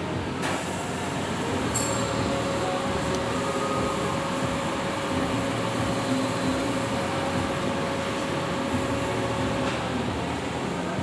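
Steady mechanical rumble and noise, with a faint steady whine from about two seconds in until near the end, and a click about half a second in.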